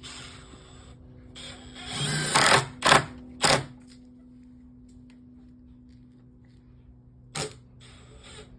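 Power drill driving screws into wood: a longer run of the motor about two seconds in, two short bursts right after, and a brief burst near the end.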